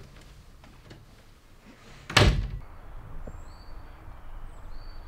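A wooden door slamming shut once, about two seconds in, with a short echo in the room. Faint bird chirps follow.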